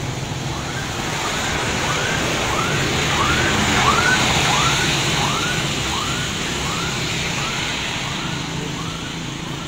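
Tyres hissing on a rain-wet road as traffic passes, loudest about four seconds in as a truck goes by. Over it, a short rising-and-falling chirp repeats a little under twice a second.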